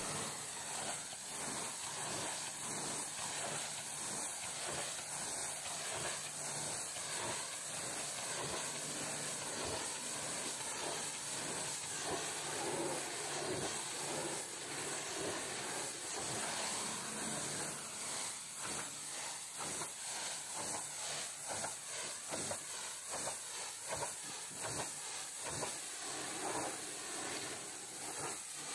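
High-pressure washer jet spraying water against a semi-trailer's metal toolbox and the wet floor beneath it: a steady hiss with spattering that wavers as the jet moves across the panel.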